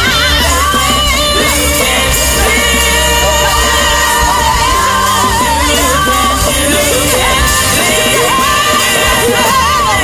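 A song playing: a lead vocalist singing with a wavering vibrato over a steady bass and band accompaniment.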